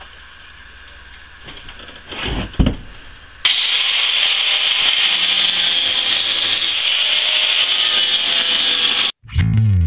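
A power tool's cutting wheel cutting through metal. After a few handling knocks, it starts suddenly about three and a half seconds in, runs as a loud, steady, high-pitched hiss for about six seconds, then stops abruptly.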